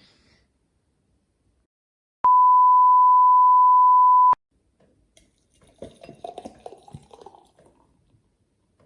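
An edited-in censor bleep: one loud, steady, pure beep about two seconds long that starts and stops abruptly. It is followed a second or so later by a quieter patch of uneven short sounds.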